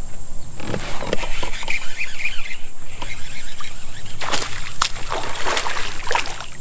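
Water splashing and sloshing, with the splashes thickest in the last two and a half seconds: a hooked bass thrashing at the surface beside a kayak.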